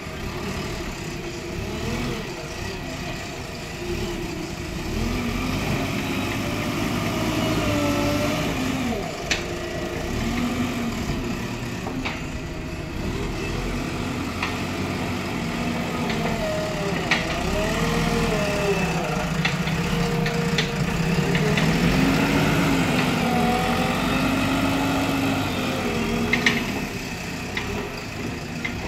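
JCB backhoe loader's diesel engine running, its pitch rising and falling as it works the front loader bucket through soil, with a few sharp knocks.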